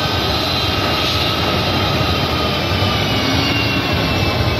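US Air Force aircraft's engines running on the ground: a steady roar with faint whining tones that drift slowly lower in pitch.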